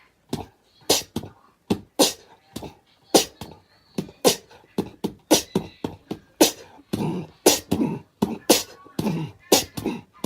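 A quick rhythm of sharp pops and clicks, about two a second, with short voiced sounds between them, like mouth percussion.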